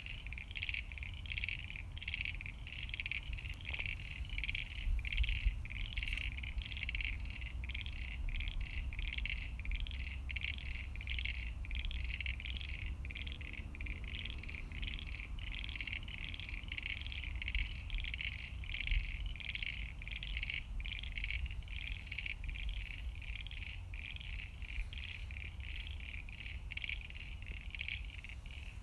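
A pond chorus of frogs calling continuously, a high pulsing note repeated a few times a second, over a low rumble.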